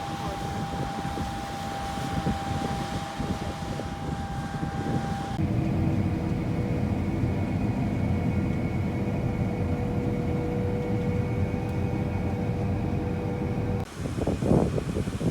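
Harvest machinery, most likely a combine harvester, running steadily: engine noise with a steady whine over it. The sound changes abruptly about five seconds in and again near the end, each time to a whine of a different pitch.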